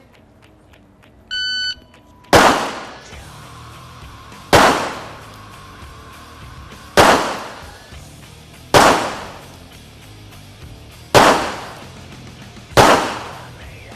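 Electronic shot-timer start beep, then six handgun shots fired one at a time at a slow, uneven pace, roughly two seconds apart, each followed by a short echo.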